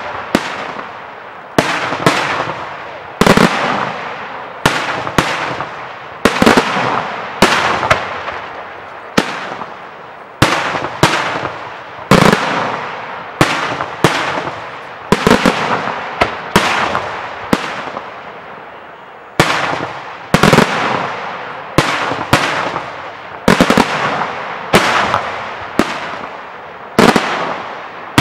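Daytime aerial fireworks shells bursting one after another, a loud bang about every one to two seconds, each trailing off in echo, with smaller quick cracks in between.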